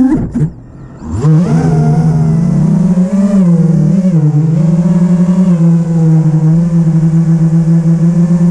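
A 5-inch FPV racing quadcopter's brushless motors whining. The sound falls away for about a second near the start as the throttle is chopped, then swoops back up and holds fairly steady with small wavers in pitch.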